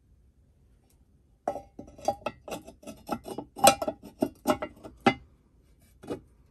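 Quick, irregular clicks and taps of fingers and fingernails on a cast iron Red Goose Shoes string dispenser, with a slight metallic ring. They come in a busy run starting a second and a half in, stop about five seconds in, and one last tap follows.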